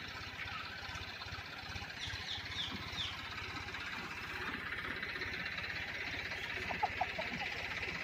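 Free-range desi chickens foraging in grass: four quick, high, falling chirps about two seconds in and a few short clucks near seven seconds, over a steady high hiss.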